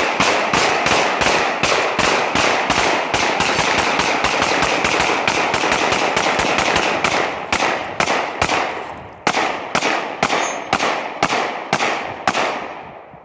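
Rapid 9mm pistol fire from a Glock 19 and a Glock 26 shot together, one in each hand. The shots come very fast and packed together for about seven seconds, then slow to spaced shots with a short pause about nine seconds in, stopping near the end.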